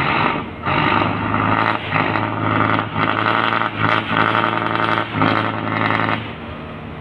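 A boat's engine running loudly in repeated surges, with short dips between them, for about six seconds before it drops back.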